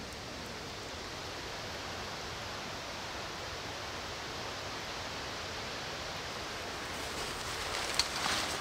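Steady outdoor hiss of woodland ambience. Near the end there is a click, then the rustle of a nylon cover being pulled over an e-bike.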